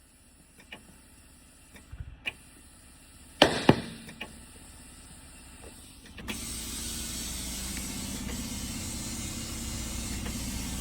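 A few light clicks and knocks, then two sharp, loud pops close together about three and a half seconds in. From about six seconds in, a steady hiss of compressed air with a low hum underneath, as air is fed into the tire through the air line.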